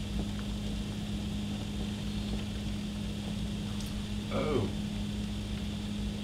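Pot of water at a rolling boil on an electric stovetop, bubbling steadily over a constant low hum. A short falling squeak about four seconds in.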